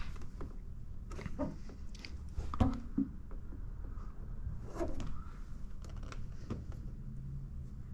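Paint protection film being pressed down and worked by hand on a truck fender edge: scattered crinkles, rubs and small clicks of the plastic film, over a low steady hum.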